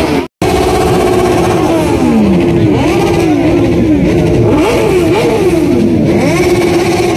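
Motorcycle engines revving, their pitch repeatedly dropping and climbing again, with more than one engine overlapping. The sound cuts out for an instant near the start.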